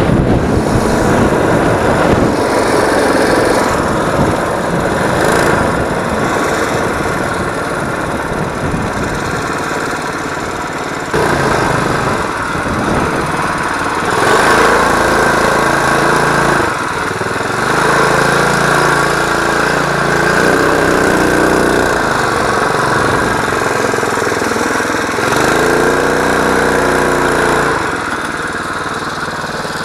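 Small ATV's Predator 212 single-cylinder four-stroke engine running while it is ridden, with wind rushing over the microphone for the first ten seconds or so. After that the engine note comes through plainly, rising and falling with the throttle, with a quick rev near the end.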